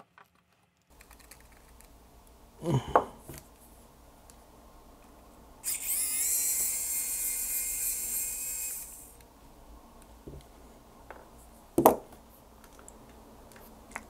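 Pen-style electric precision screwdriver running for about three seconds, a high motor whine, while backing out a screw from a salt-crusted drone frame. Two short handling knocks come before and after it.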